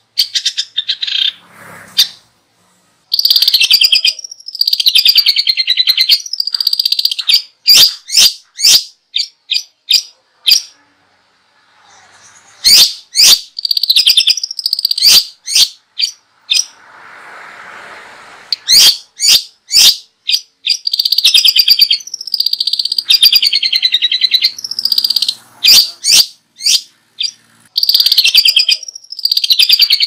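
A small songbird singing loud, high, rapid trilled phrases that dip and rise, over and over, broken up by quick sharp single chip notes and a few short pauses.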